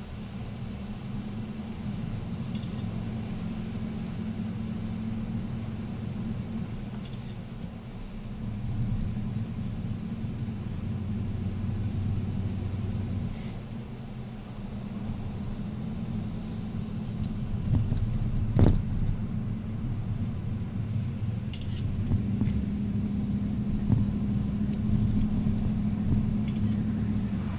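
Vehicle engine and tyre rumble heard from inside the cab while driving on beach sand: a steady low drone, with one sharp knock partway through.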